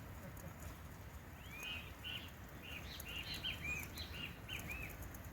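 A bird singing a quick run of about a dozen arched chirping notes, starting about a second and a half in, over a low steady rumble.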